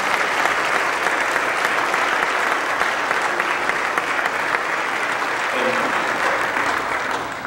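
Church congregation applauding, steady clapping from many people that dies away at the very end.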